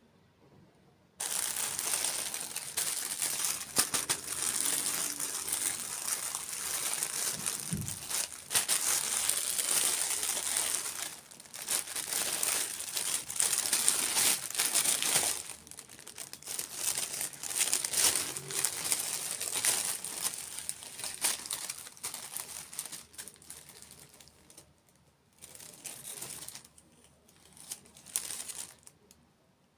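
Packaging crinkling and rustling as it is handled. It starts abruptly about a second in, with a couple of short pauses along the way.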